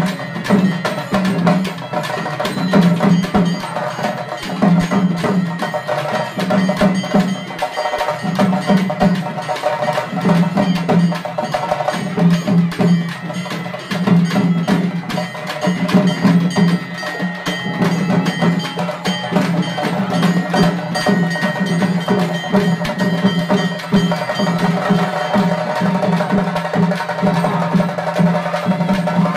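Temple festival drum ensemble (melam) playing a fast, continuous beat, with bells ringing over it.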